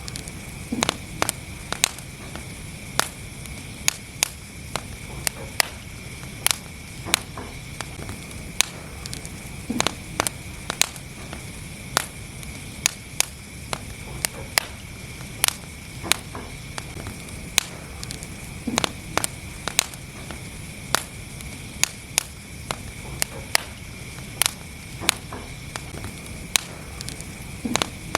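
Wood fire in a fireplace crackling, with irregular sharp pops and snaps, sometimes several close together, over a steady low rumble of the flames and a faint steady high hiss.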